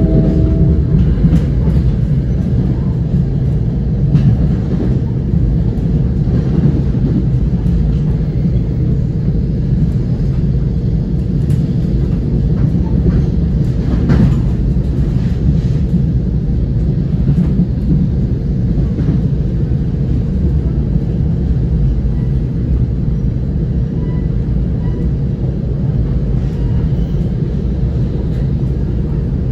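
Steady low rumble of a passenger train coach running on rails, heard from inside the car, with a single sharp click about halfway through.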